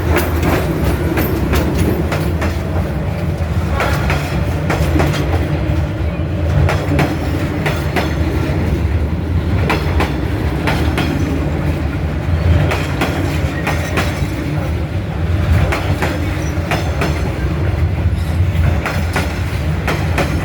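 A train rolling past: a steady low rumble with frequent clacks from the wheels running over the rails.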